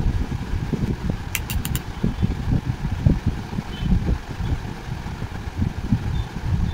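Low, uneven, fluttering rumble of air buffeting the microphone, with four quick clicks about a second and a half in.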